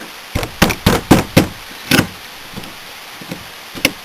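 Arrow hand rivet tool being pumped, its handles and jaws clicking sharply. The clicks come in a quick run over the first two seconds, then one more near the end. The jaws are failing to grip the rivet mandrel, which silicone gumming up the inside of the tool is causing.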